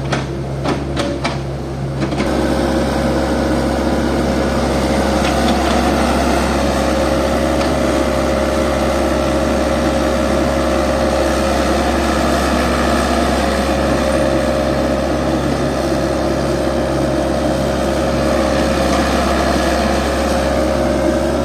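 A motor running steadily with a constant hum and a held whine, settling in about two seconds in after a few sharp clicks.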